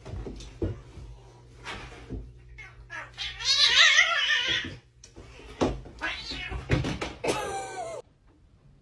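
A cat yowling: one long wavering call a few seconds in and a shorter one near the end, with a few knocks and bumps between, over a low steady hum.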